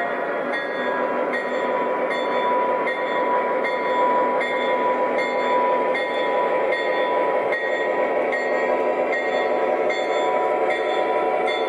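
O gauge Conrail GP30 model diesel locomotive running slowly on three-rail track. Its onboard sound system plays a steady diesel engine drone, with a high tone repeating about every half second.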